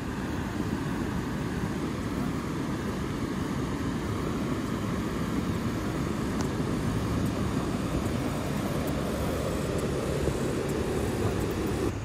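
Steady rushing of the Saluda River flowing over rocky shoals, a continuous even roar that swells slightly toward the end.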